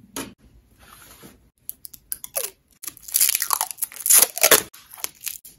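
Protective plastic film being peeled off a laser-cut crescent-moon decoration and crumpled in the hand: scattered crackles at first, then a louder run of crackling and tearing rustles over the second half.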